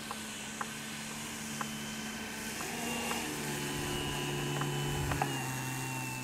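Electric R/C biplane's motor and propeller whining on a low pass, growing louder as it comes in and dropping in pitch as it passes close by, a little after the middle.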